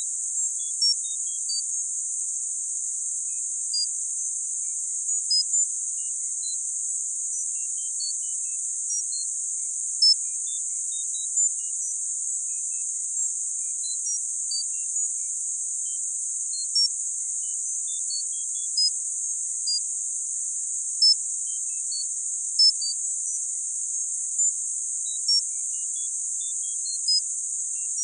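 Tinnitus sound-therapy masking sound: a steady, high-pitched band of hiss with short high pips of varying pitch scattered irregularly over it, about one a second.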